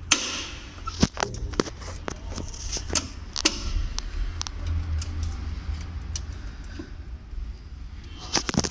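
Sharp clicks, knocks and light metallic rattles as a tractor's tool box is handled, with several strong knocks in the first four seconds and a quick cluster of clicks near the end.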